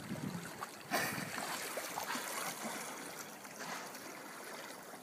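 Sea water splashing and lapping against the hull of a plastic sit-on-top kayak, with a sudden louder splash about a second in.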